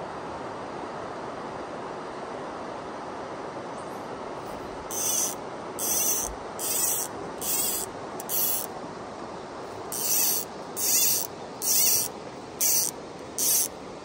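Fly reel buzzing in short bursts as line is pulled off it by hand, ten pulls in two sets of five starting about five seconds in, over the steady rush of the river.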